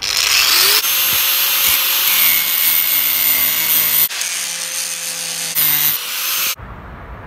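Angle grinder with a cutting disc running against the metal head of a one-way anti-theft screw, grinding a slot across it for a flathead screwdriver. The grinding is a loud, steady hiss that eases about four seconds in and stops about six and a half seconds in.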